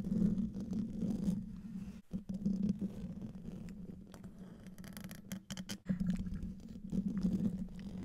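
Fingernails and fingertips scratching and rubbing on a microphone's metal mesh grille, picked up very close as a dense scratchy rustle, with a cluster of sharper taps and scrapes about five to six seconds in.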